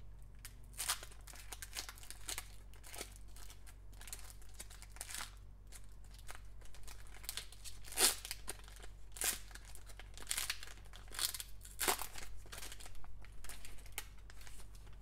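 Foil wrapper of a Panini Select trading card pack being torn open and crinkled by hand: irregular crackling and ripping, with the loudest rips about eight and twelve seconds in.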